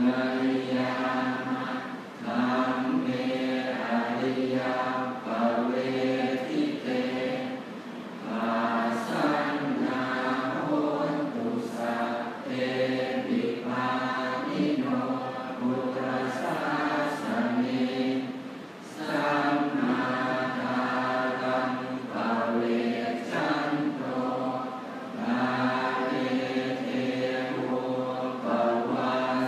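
Thai Buddhist monks chanting the morning service (tham wat chao) together in unison, a steady recitation in phrases of several seconds with brief pauses for breath between them.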